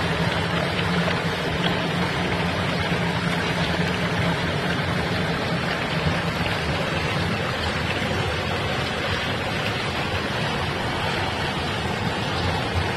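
Steady rushing of running water, like a small waterfall, with a low hum underneath through the first half.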